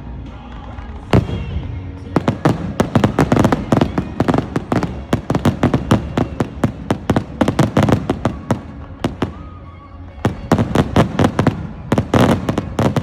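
Aerial fireworks going off in rapid volleys: a dense string of sharp bangs, several a second, with a short lull past the middle before another rapid volley.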